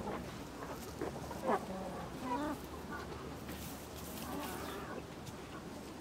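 Chickens clucking: a run of short calls over a steady low background hum. The loudest call comes about a second and a half in and falls in pitch.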